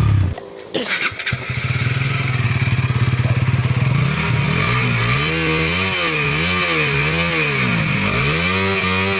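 Single-cylinder motorcycle engine: it drops away sharply just after the start and fires up again about a second in, then settles to a steady idle. From about five seconds in it is blipped in a series of short revs, each rising and falling.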